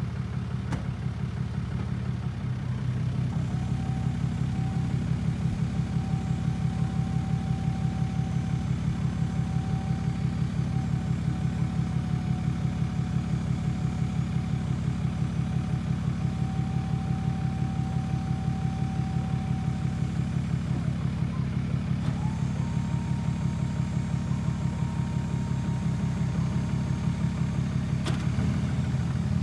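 A vehicle engine running steadily with an even low pulse. A faint steady whine joins it a few seconds in, drops out about two-thirds of the way through, and returns a couple of seconds later at a slightly higher pitch.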